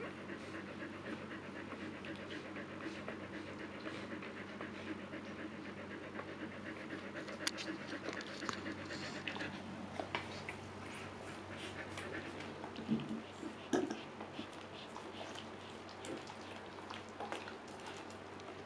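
Siberian husky mother panting rapidly in labor, between puppy births. Soft clicks and rustles join in partway through, with a couple of brief louder sounds about two-thirds of the way in.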